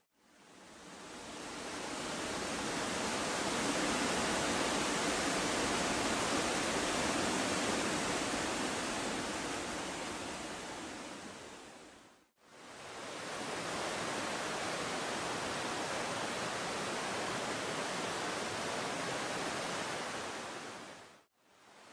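Steady rush of a fast mountain stream tumbling over rocks in a narrow gorge. It fades out and back in about twelve seconds in, and fades out again near the end.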